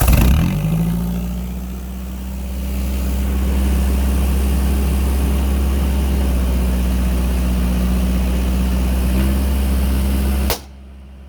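Truck engine cranking and catching with a loud flare, then idling steadily through its exhaust, which is filling a balloon stretched over the tailpipe. The sound cuts off suddenly near the end.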